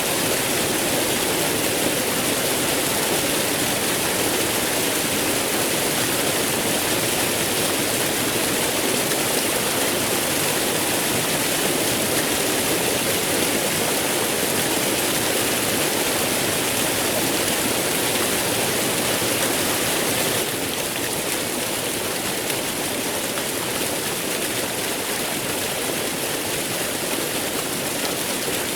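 Waterfall flowing, a steady rush of falling water with no break; it drops slightly in level about twenty seconds in.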